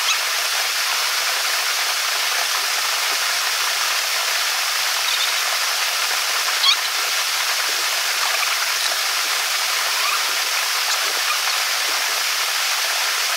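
Small waterfall pouring into a rocky pool: a steady, even rush of falling water, with one short click about halfway through.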